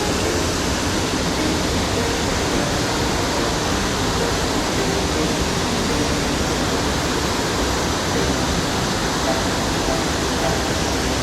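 Waterfall water rushing in a loud, steady roar that does not change.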